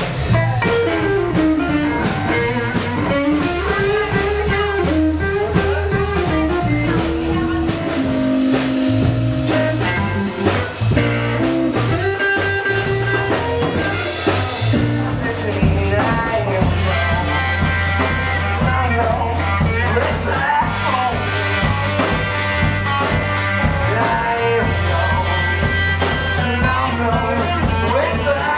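Blues band playing: an electric guitar melody over drum kit and low bass notes.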